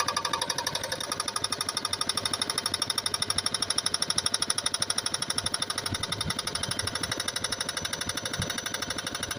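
Hammer breaker pounding stone with a fast, even run of blows, with a few deeper thuds about six and eight seconds in.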